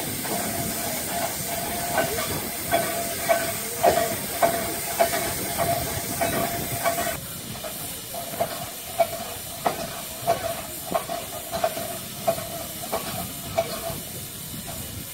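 Isle of Man Railway Beyer Peacock 2-4-0 tank engine No. 13 Kissack standing in steam, hissing steadily with a steady note running through the hiss and regular knocks about twice a second. The hiss eases a little about seven seconds in.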